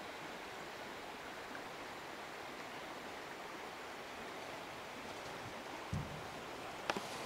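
Steady rush of flowing river water, with a soft low thump about six seconds in and a sharp click near the end.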